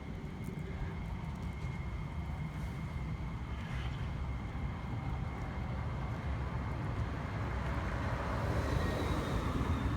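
Steady low rumble of vehicle traffic, growing gradually louder toward the end as a vehicle approaches.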